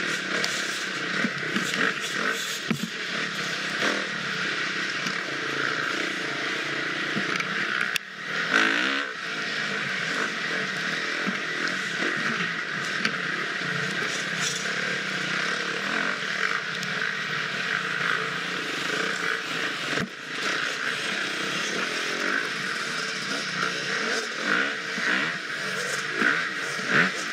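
Husqvarna FX 350 single-cylinder four-stroke dirt bike engine running at race pace off-road, its pitch wavering as the throttle opens and closes. There are brief drops in level about eight and twenty seconds in, the first followed by a short loud rev.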